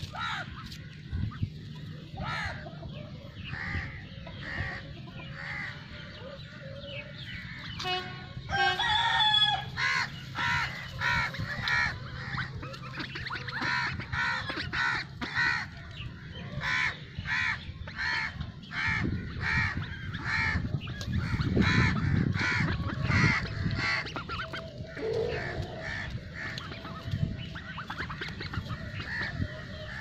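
Farm poultry calling: a long run of short, repeated calls, about two a second, with one longer drawn-out call about eight seconds in.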